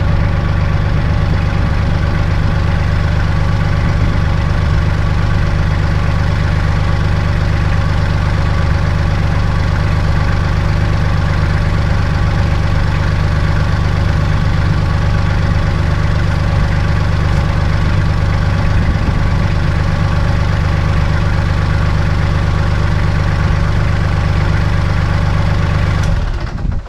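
Kubota L3800 tractor's three-cylinder diesel engine running steadily, then shut off near the end.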